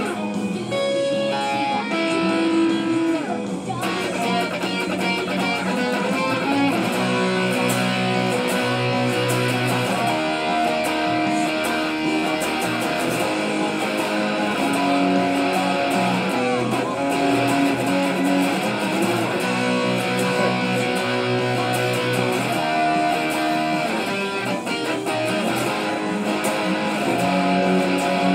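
Electric guitar played with a pick, a run of held notes and chords.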